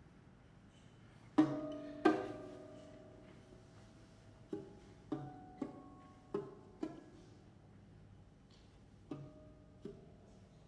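Solo lute plucked sparsely: two strong chords about a second and a half and two seconds in, then scattered single notes and pairs, each ringing and fading away, with long pauses between.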